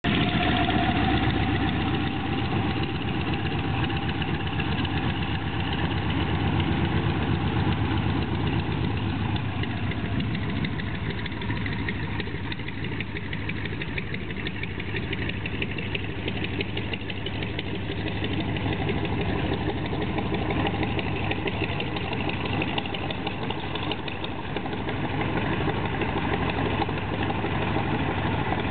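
Harvard Mk IV's Pratt & Whitney R-1340 Wasp nine-cylinder radial engine running at low taxi power, a steady fast-pulsing beat that eases a little in the middle and grows again near the end as the aircraft taxis.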